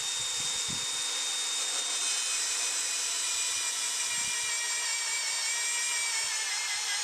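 Milwaukee M18 FUEL cordless magnetic drill running with an annular cutter at about 400 RPM, a steady high motor whine with several tones held level; the tones waver a little near the end.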